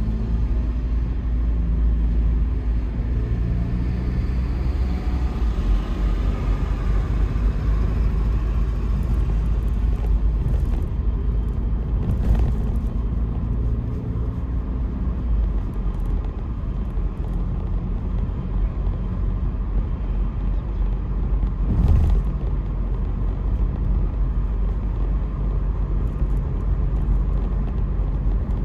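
Car driving along a city street, heard from the car: steady low road and engine rumble. The engine note shifts in pitch during the first half, and there are two brief knocks, about twelve seconds in and again about ten seconds later.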